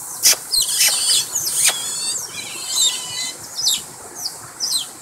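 A group of Asian short-clawed otters calling in many short, high-pitched squeaks and chirps that overlap one another as they crowd together over food.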